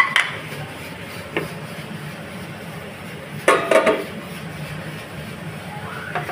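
Cookware clanking on a stovetop: a clank at the start, a light tap about a second and a half in, and a quick run of clanks about three and a half seconds in as the glass lid comes off a karahi, over a steady low hum.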